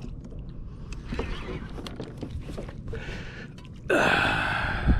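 Low rumble of wind and water on the microphone, then about four seconds in a sudden loud, sustained buzz: a fishing reel's drag giving line as a hooked yellowfin tuna runs.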